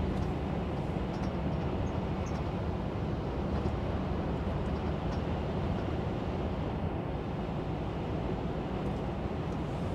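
Steady drone of a lorry's engine and tyres on the road, heard from inside the cab while driving at a constant speed.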